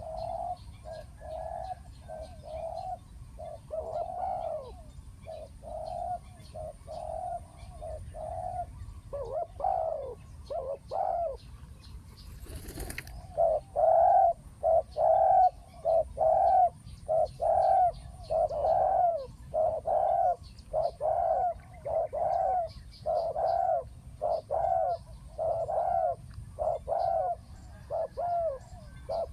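Spotted doves cooing in a steady run of short, low coos, about one a second, louder from about halfway through. A brief rustling noise comes just before the louder part. Faint chirps of small birds sound in the background.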